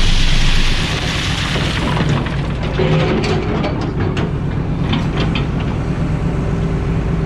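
Excavator engine running under load while it tears apart and crushes a mobile home, with many sharp cracks and snaps of breaking wood and siding over a steady low rumble. The sound cuts off suddenly at the end.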